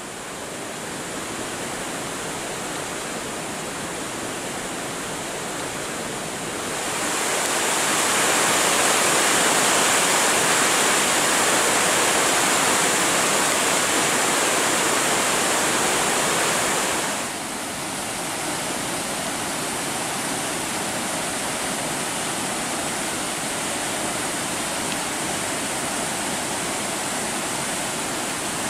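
Babinda Creek swollen by heavy rain, its white water rushing and cascading over large boulders in a steady, dense rush. The sound grows louder about a quarter of the way in and drops back a little past halfway.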